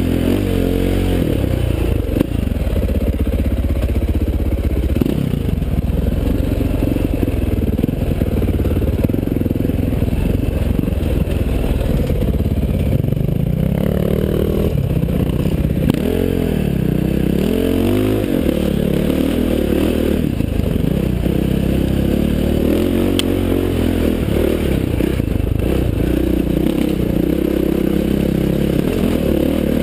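KTM 530 XC-W dirt bike's single-cylinder four-stroke engine running under load on a rocky trail climb, its revs rising and falling again and again as the throttle is worked.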